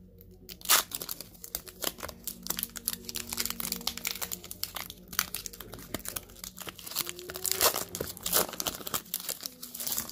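Foil wrapper of a Pokémon TCG booster pack being torn open and crinkled: a dense run of small sharp crackles, the loudest about a second in. Near the end, the stack of cards is slid out of the foil.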